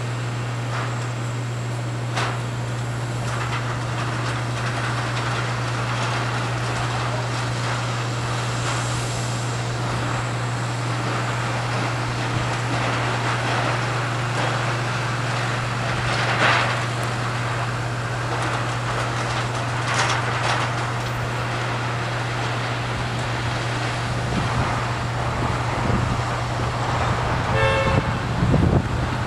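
Steady low drone of machinery on an airport apron, with a few scattered knocks. Near the end, low rising engine sounds come in along with a short toot.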